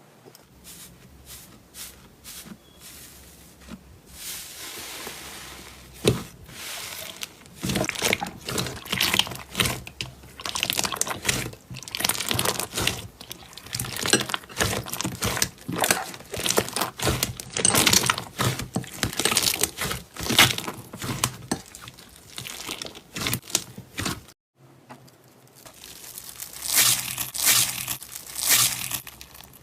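Slime being squeezed and worked by hand, giving dense irregular crackling and popping clicks. After a short break, the crackling starts again.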